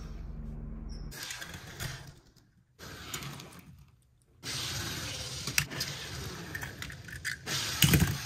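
Die-cast Hot Wheels toy cars rolled across a hard tabletop, their small wheels rattling in three stretches with short pauses between. Sharp clicks come as the metal cars knock down or bump, the loudest near the end.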